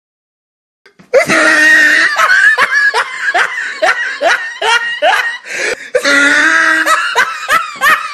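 Loud human laughter, a rhythmic 'ha-ha-ha' that starts about a second in after a moment of silence and goes on without a break.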